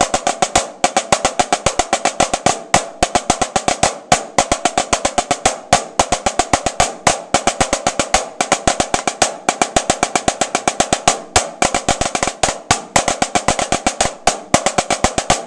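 Two drummers playing a rudimental snare drum solo passage together on snare drums at a slowed practice tempo. The stick strokes come in a steady, rapid stream with accents picking out a melody.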